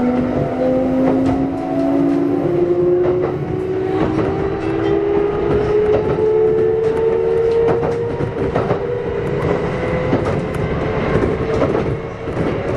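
Kintetsu 1249 series electric train running, heard from on board: the Hitachi GTO-thyristor VVVF inverter and traction motors whine in several tones that rise slowly in pitch as the train gathers speed. Wheels rumble and click over rail joints.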